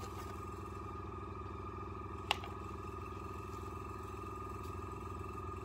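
Steady hum of a small electric motor running, with one sharp click about two seconds in.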